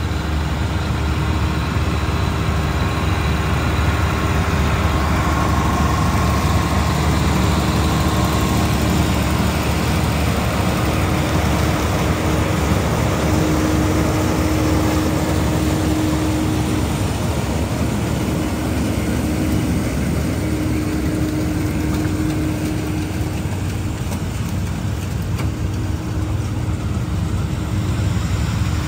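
Tractor engine running steadily, a low drone with a faint humming tone that comes and goes.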